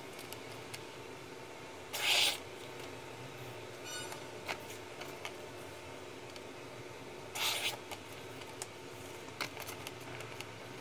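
Sheet of A4 paper brushing and scraping against a thin steel snap-off cutter blade, two short scratchy rasps about five seconds apart, with faint taps of the paper and blades on the table between them.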